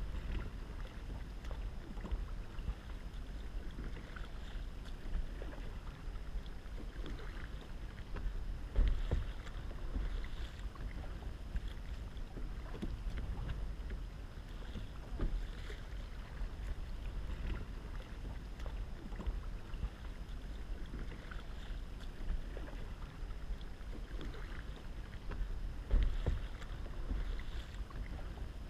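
Kayak paddle strokes dipping and splashing in the water alongside a kayak, irregular and repeated, over a steady rumble of wind on the microphone. Two louder thumps stand out, about nine seconds in and a couple of seconds before the end.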